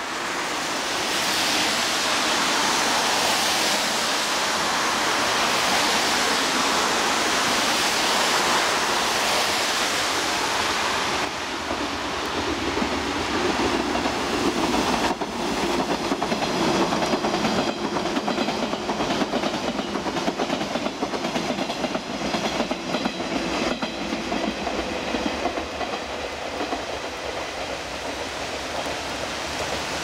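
JR 485-series electric train passing close, its wheels clacking over rail joints in a steady rhythm, under a constant hiss of wind and rain. The hiss dominates the first third; the train's clacking stands out from a little before the middle to about four-fifths of the way through, then fades back into the rain hiss.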